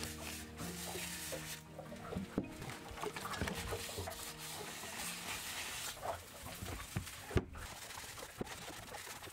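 Quiet background music with a few light clicks and knocks as metal gearbox parts are handled and wiped with a paper towel, the sharpest click about seven seconds in.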